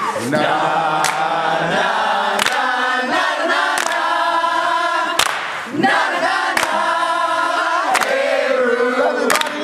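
A group of voices singing together in chorus, with a sharp percussive hit about every second and a half keeping the beat.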